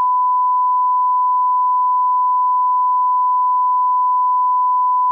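Broadcast line-up test tone: one steady, unbroken pure tone sounded with colour bars.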